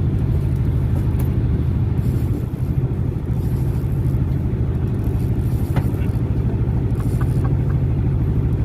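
Fishing boat's inboard engine running steadily, a low, even, pulsing drone, with a faint click or two about six and seven seconds in.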